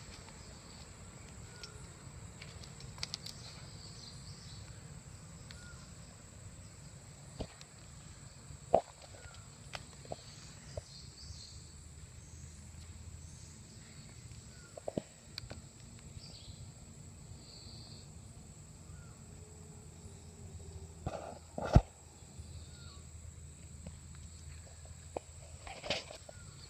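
Quiet rainforest ambience: a low steady rumble with faint scattered chirps, broken by a few sharp knocks and rustles from footsteps and handling. The loudest is a double knock a little past two-thirds of the way through.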